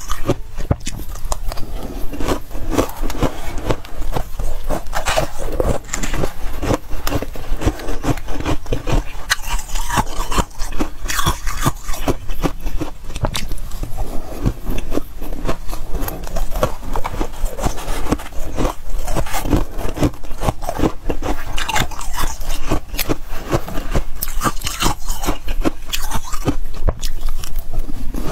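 Close-up crunching and chewing of freezer frost: a dense, continuous run of crisp crunches and scrapes as the ice is bitten and chewed.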